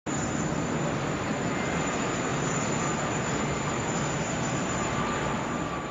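Boeing 747 jet engines running loud and steady, a dense roar with a thin high whine above it. It starts abruptly and cuts off sharply near the end.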